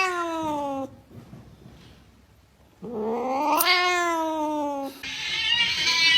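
A cat yowling: two long, drawn-out calls, each rising and then falling in pitch, with a quiet gap of about two seconds between them. A rougher, noisier sound builds near the end.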